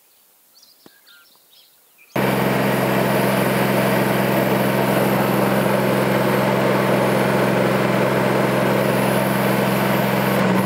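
A few faint bird chirps, then about two seconds in a small excavator's engine cuts in abruptly and runs loud and steady.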